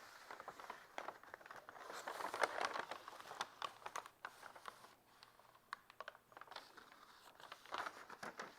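Hot household iron rubbed over a brown paper bag laid on veneer: faint, irregular rustling and crinkling of the paper with scattered light ticks, a little louder a few seconds in.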